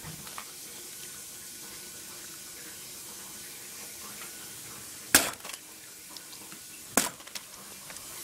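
Steady background hiss, broken twice by a sharp knock about two seconds apart, with a few fainter ticks: a handheld recording device being handled.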